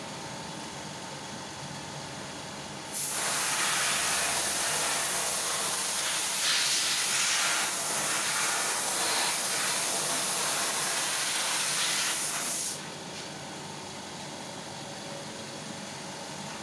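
Compressed-air paint spray gun spraying: a loud steady hiss that starts suddenly about three seconds in and cuts off after about ten seconds, over a quieter steady background noise.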